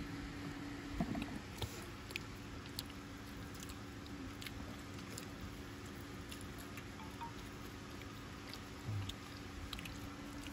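Faint sounds of people eating with their hands: scattered small clicks and soft chewing over a steady low hum.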